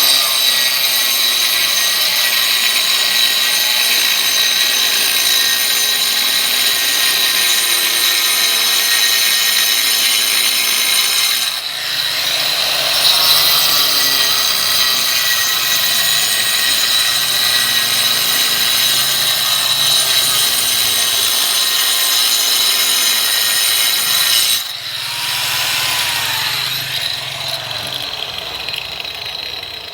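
Power tool running under load on construction work, with a steady high-pitched whine. The whine drops out briefly twice, once near the middle and once toward the end, then picks up again.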